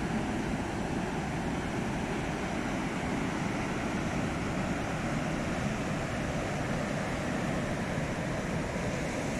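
Heavy surf breaking on a beach, a steady wash of waves from a rough sea, with breakers a couple of meters high.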